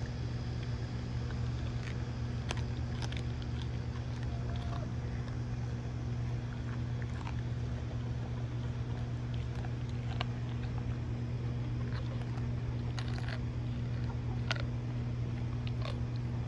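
Doberman chewing a whole raw squirrel, with scattered sharp crunches of bone every second or two, over a steady low hum.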